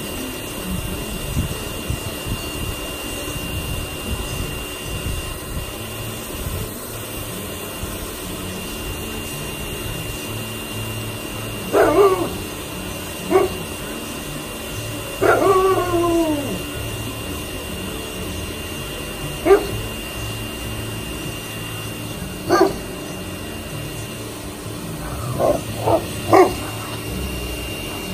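Alaskan malamutes giving a run of deep barks at someone hidden behind the front wall, starting about halfway through: single woofs spaced a few seconds apart, one longer call that falls in pitch, and three quick barks near the end.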